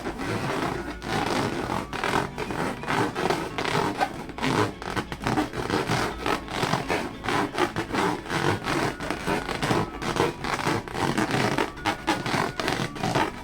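Hands rubbing and squeezing rubber balloons: a rapid, irregular run of rubbery scratching and scraping strokes, several a second.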